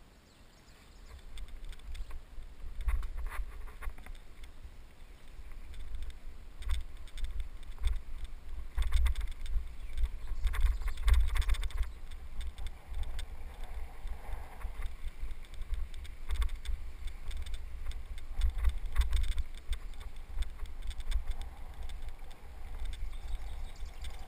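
A bicycle rolling over a bumpy dirt trail, heard through a helmet-mounted camera: an uneven low rumble with frequent knocks and rattles. It picks up from near quiet in the first second or two.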